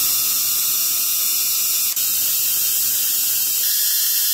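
Homemade Tesla coil's high-voltage discharge, sparking from a wire tip, making a steady crackling hiss with a brief break about two seconds in.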